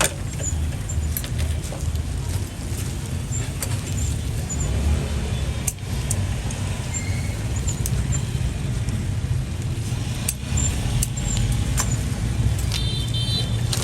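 Steady low rumble of street traffic, with scattered short clicks and clatter and a brief high beep near the end.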